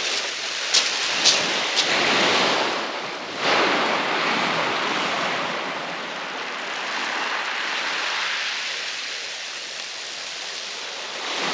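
Small waves breaking and washing over a shingle beach, the surge swelling and easing over several seconds. Three short sharp clicks in the first two seconds.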